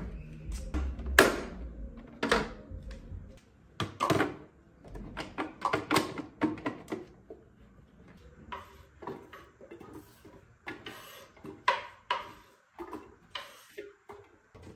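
Irregular knocks and clatters of hard objects being handled and set down, some sharp with a short ring, several a second at times and sparser near the end.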